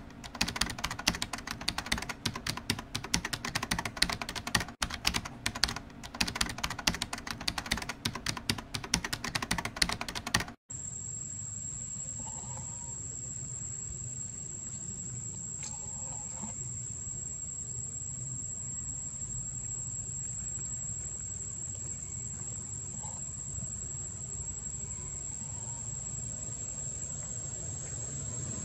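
Rapid computer-keyboard typing clicks for about the first ten seconds. After a sudden cut come a steady high-pitched whine and low outdoor rumble, with a few faint short calls.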